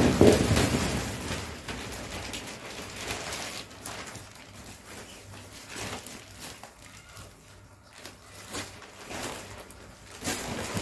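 Clear plastic wrapping crinkling and rustling as it is pulled off a new spring-bed mattress, loudest near the start, then fainter scattered rustles.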